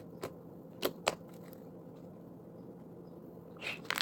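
Freshly made homemade slime handled in the hands, giving a few short sticky clicks and pops in the first second or so and more soft clicks near the end.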